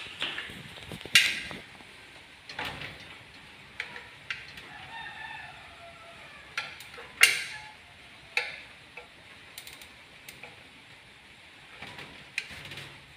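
Caulking gun clicking at irregular intervals as its trigger is worked to run sealant along an aluminium window frame; the sharpest clicks come about a second in and about seven seconds in. A rooster crows in the background around the middle.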